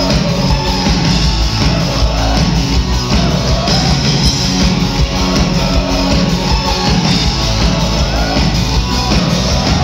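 Live rock band playing loud, with drum kit, guitars and bass, captured from within the crowd.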